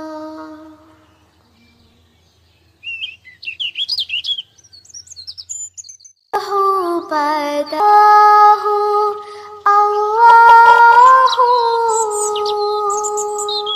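Background music soundtrack with bird chirping: a held note fades out and a short lull follows. Quick high bird tweets come in, then sustained, stepping tones play under further chirps.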